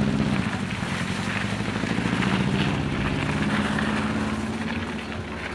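An engine running steadily, a low hum that eases off slightly near the end.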